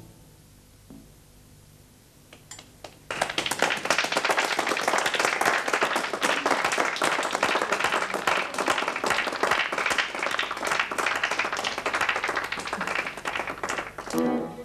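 Applause from a small group of listeners: a few scattered claps, then about ten seconds of steady clapping.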